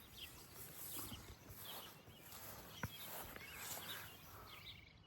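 Faint, scattered bird chirps with a few soft clicks.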